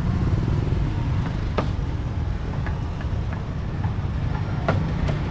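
Steady low rumble of passing street traffic, with a few sharp knocks, one about a second and a half in and another near the end.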